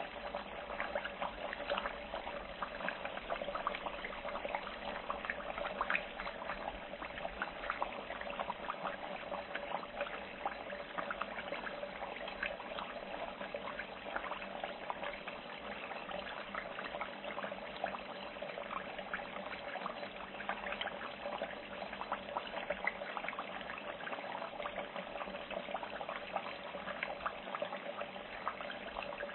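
Food frying in hot oil, a steady sizzle with dense crackling and popping that keeps an even level throughout.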